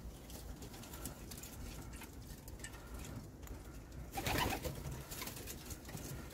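Racing pigeons cooing softly, with a louder stretch of calls about four seconds in.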